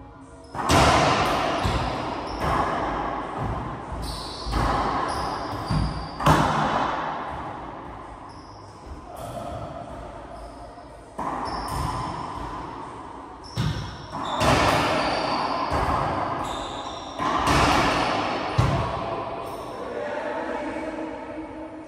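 Racquetball rally: a series of sharp hits of the rubber ball off racquets and the court walls, each ringing out in the enclosed court's long echo.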